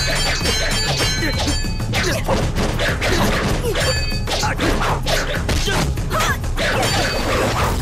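Fast, dense run of punch and strike sound effects from a staged kung fu fight, many hits a second, over action music.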